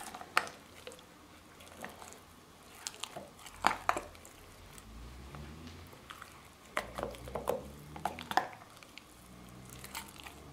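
Spatula scraping and stirring thick hummus inside a plastic NutriBullet cup: quiet squishing, with scattered short knocks and scrapes of the utensil against the cup.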